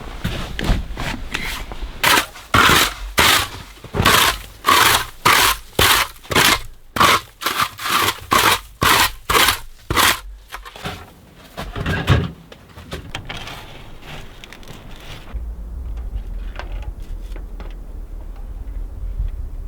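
Rhythmic scraping strokes, about two a second for some eight seconds, then a single stroke. Low wind rumble on the microphone begins near the end.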